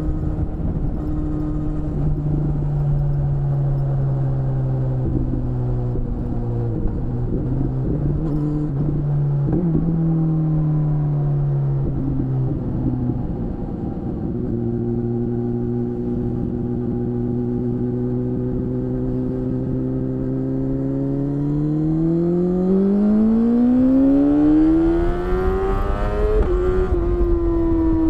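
BMW S1000RR inline-four engine through an Akrapovic exhaust, heard from onboard: running at low, steady revs with a few throttle changes in the first half, then accelerating hard with the revs climbing for about five seconds before an upshift near the end.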